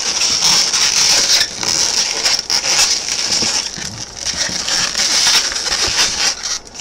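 Inflated latex twisting balloons squeaking and rubbing against each other as a balloon scrap is twisted and wrapped into a pinch twist: a loud, continuous, high squeaky crackle that drops away at the end.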